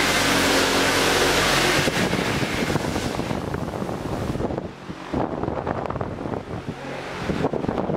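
Electric pedestal fan blowing air onto the camera microphone: a steady rush of wind noise that turns gustier and more uneven about halfway through as the camera moves.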